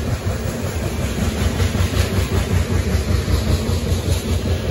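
Coal hopper cars of a freight train rolling past: a steady low rumble of steel wheels on rail, with repeated wheel clacks over the rail joints.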